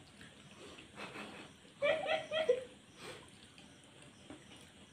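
Faint mouth noises of eating a momo without hands, face to the plate: chewing and sucking sounds. About two seconds in, a brief run of three short high vocal notes from one of the eaters.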